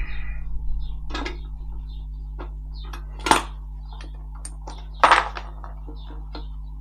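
Metal tools and engine parts clinking and clattering, with two louder clanks about three and five seconds in, over a steady low hum.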